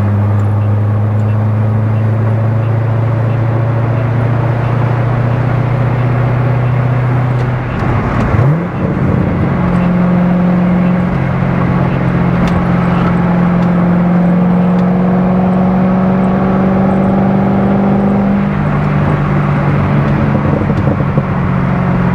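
C6 Corvette Z06's 7.0-litre LS7 V8 running steadily at highway cruise. About eight seconds in, the revs climb quickly and the engine then holds at a higher pitch.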